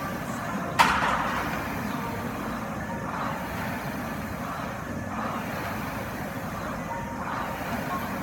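Air rowing machine's flywheel fan whooshing with each pull, about one stroke every two seconds, over a steady hum. A single sharp knock comes about a second in and is the loudest sound.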